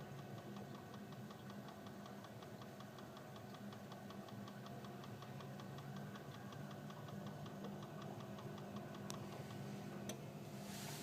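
Ideal Isar HE30 boiler's spark igniter ticking rapidly and evenly, about six clicks a second, over a steady fan hum, as the boiler tries to light; this boiler lights but does not stay on. A couple of single sharp clicks follow near the end.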